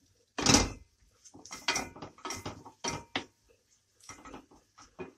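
Wooden spoon scraping and knocking against a stainless steel pan in irregular strokes while stirring and breaking up browned ground beef, the loudest scrape about half a second in.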